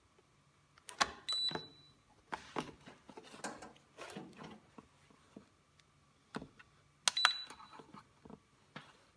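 Turnigy LiPo balance charger giving two short high beeps, one about a second in and one about seven seconds in, each among sharp plastic clicks from the power plug and buttons. Between them, a few seconds of rustling and handling noise.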